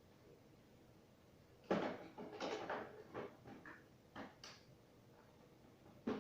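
Hard objects handled during a motor repair: a run of sudden knocks and clatters starting about two seconds in, a pause, and one sharper knock at the very end.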